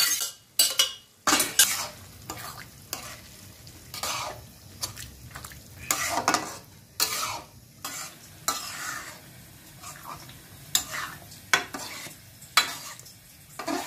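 Metal spatula stirring and scraping boiled chickpeas through thick masala gravy in a metal kadhai, with irregular scrapes and clinks against the pan over a low sizzle from the frying masala.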